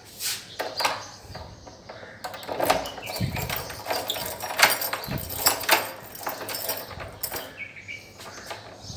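Lock and handle of a wooden door rattling and clicking as someone works to open it, a run of sharp clicks and knocks with a few louder knocks in the middle.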